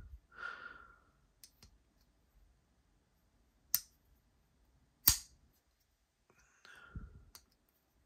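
Folding pocket knife being worked open and shut by hand: two sharp clicks of the blade snapping into place, about a second and a half apart, with faint handling and breathing noise.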